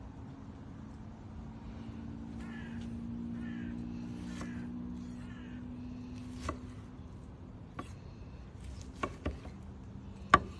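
Chef's knife slicing through a cooked steak and knocking on a wooden cutting board: five sharp knocks in the second half, the last and loudest just before the end.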